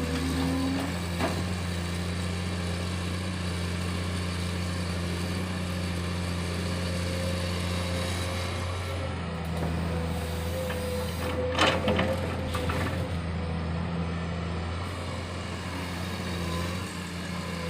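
A JCB machine's diesel engine running steadily, with a short metallic clatter about twelve seconds in.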